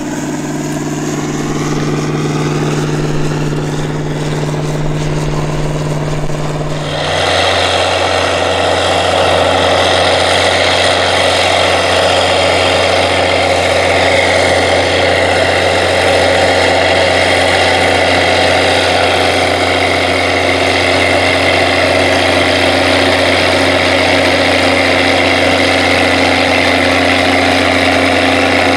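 Big articulated four-wheel-drive Steiger tractor diesels running steadily in the field. First a tractor pulls a disk harrow through the soil. About seven seconds in, a Steiger Panther III ST-325's 325 hp diesel takes over with a lower, steady drone.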